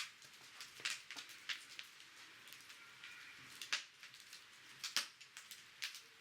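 Wood fire crackling and popping, with irregular sharp snaps over a steady hiss. The loudest snaps come about a second in, near the middle and about five seconds in.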